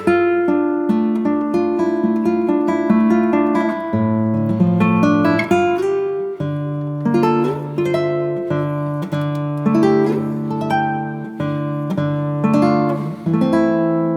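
Background music: acoustic guitar played with plucked, ringing notes over a bass line.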